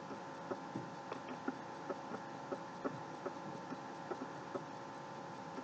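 Light clicking, several ticks a second, over a steady hum.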